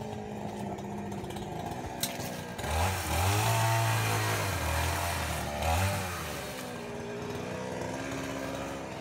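A small engine revs up about three seconds in, holds high for a few seconds with a brief dip, then runs lower and steady.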